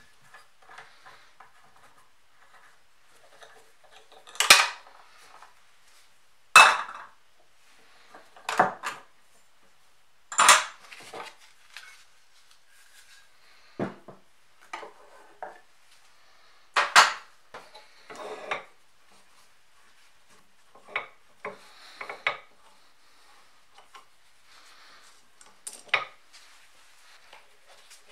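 Rusty steel parts of an old Kity 642 sharpener clanking and knocking as they are handled and taken apart. About a dozen sharp clanks come at uneven intervals, with quiet scraping and handling noise between them.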